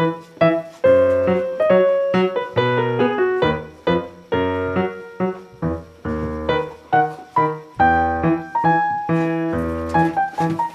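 Background piano music: notes and chords struck in a steady, lively rhythm, each note fading after it is played.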